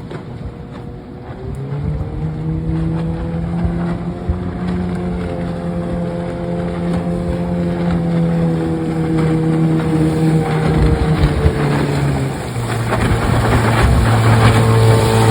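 1996 Johnson 15 hp two-stroke outboard running under way; its pitch rises about two seconds in and holds steady, then drops lower near the end as the motor grows louder.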